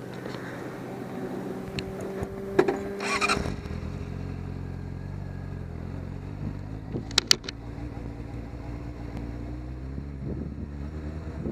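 Sport motorcycle engine running at low speed, heard from the bike. Its note drops about three and a half seconds in. A few sharp clicks come about two and a half seconds in and again near seven seconds.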